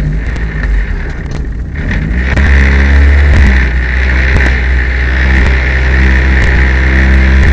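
Peugeot 205 rally car's engine pulling hard, the revs climbing about two seconds in and then held high and steady. The car is running with a misfire.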